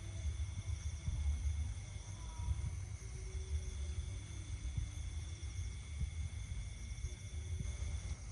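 Insects trilling steadily at several high pitches over a low, uneven rumble of wind buffeting the microphone.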